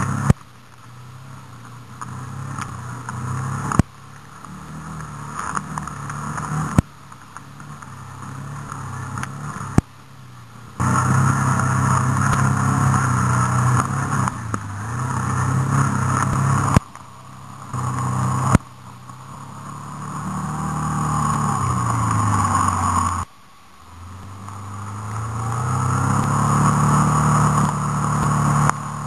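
Engine of an off-road vehicle driving along a wet dirt track, its pitch rising and falling with the throttle. The level cuts off suddenly several times, then builds again, with a few sharp clicks.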